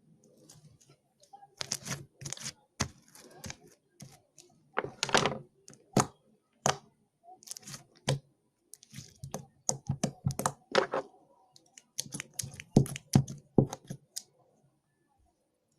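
Slime being squeezed and worked: irregular sticky clicks and pops in clusters, with short pauses between them.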